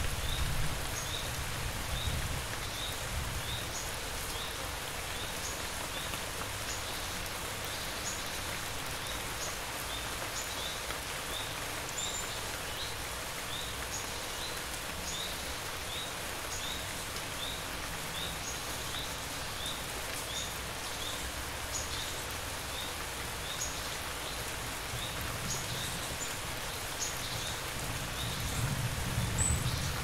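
Steady rain falling, an even hiss of drops, with a faint high chirp repeating at an even pace, roughly once or twice a second. Low thunder begins to rumble a few seconds before the end.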